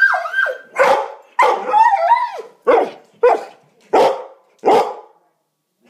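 Dog vocalising: a wavering, crying yowl at the start, then a run of about seven loud barks, roughly one every two-thirds of a second, that stop about five seconds in.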